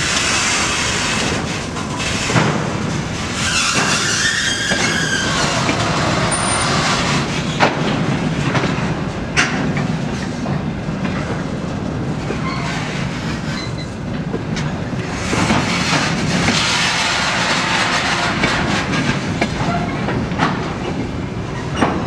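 Empty container flatcars rolling past on the rails, their wheels clacking over rail joints with scattered sharp clanks and a brief wheel squeal about four seconds in.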